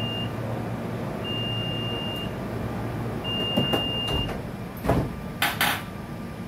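SEPTA Regional Rail car's door-closing warning: long high beeps about two seconds apart, then the sliding side doors knock and thud shut about four to five seconds in, followed by two short hisses. A steady low hum from the standing train runs underneath.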